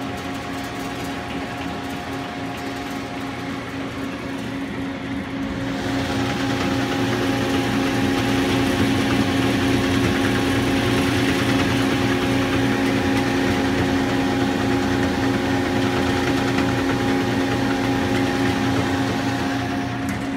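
Solbern rotary spice dispenser running: its motor and rotating cup turret make a steady mechanical hum with a few constant tones, growing louder and hissier about six seconds in.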